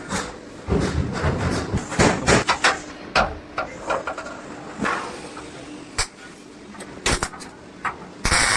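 Irregular knocks and clattering of sheet-metal trunk parts being handled and struck in a workshop, with a short burst of hiss near the end.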